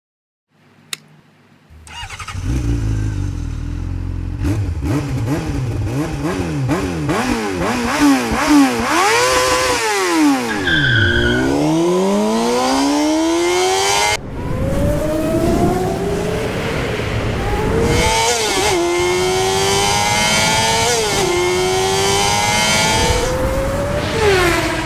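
Racing-car engines revving hard, their pitch climbing and dropping again and again. About ten seconds in a car passes with a falling pitch, and the sound cuts off briefly about fourteen seconds in before more revving.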